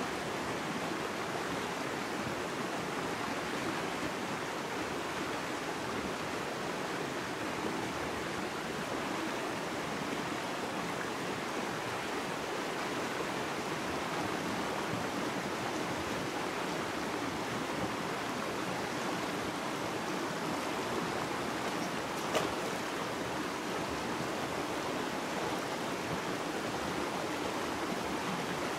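Shallow river water running steadily, a constant rush. One short click about three quarters of the way through.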